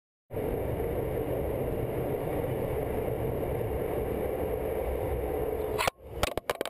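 Passenger train running, heard from inside the carriage: a steady rumble with a constant hum. About six seconds in it cuts off and a few sharp knocks follow as the camera is handled.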